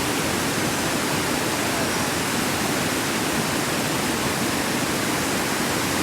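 Steady rush of flowing water, such as a waterfall or fast stream, holding an even level throughout.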